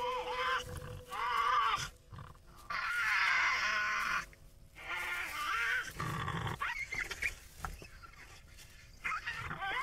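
Tasmanian devils giving harsh, wavering growls and screeches in several bursts, the longest about three seconds in, as a male and female wrestle during mating.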